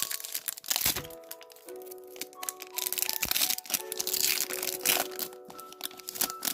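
Foil wrapper of a Pokémon TCG booster pack crinkling and being torn open, with many sharp crackles, busiest in the middle, over steady background music.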